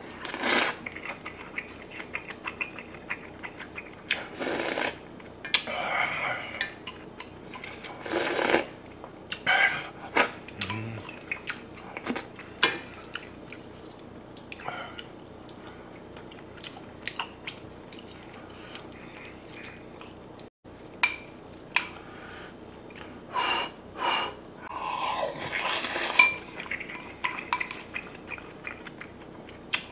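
A spoon clinking and scraping against a metal pot as kimchi stew is scooped up, with eating and chewing sounds in between.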